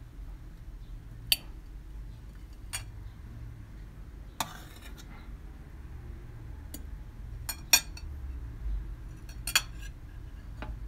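Metal knife and cake server clinking and scraping against a metal serving tray and a ceramic plate as a slice of baked saffron rice is cut and lifted out: about eight sharp clinks scattered through, with one longer scrape about four seconds in. A steady low hum sits underneath.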